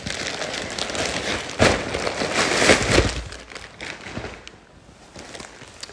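Plastic delivery packet crinkling and rustling as it is opened. The rustling is loudest in the first three seconds and dies down after.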